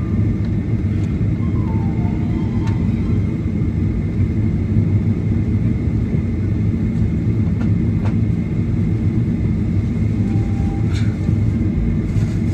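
Steady low rumble inside an airliner cabin as the plane taxis, with a faint steady whine and a few light clicks.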